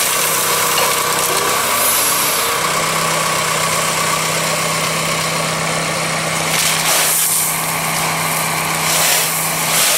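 Loader tractor's engine running steadily at idle, a constant low hum under an even noisy rush, while pea gravel is tipped out.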